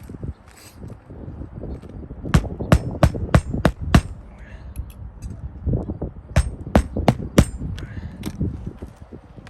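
Hammer driving roofing nails into asphalt shingles: a run of about six quick strikes, then after a pause four more, about three a second.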